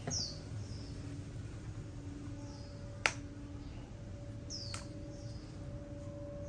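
Birds chirping in the background with a few short falling chirps, over a steady low hum; two sharp clicks stand out, the louder about three seconds in and a softer one near five seconds.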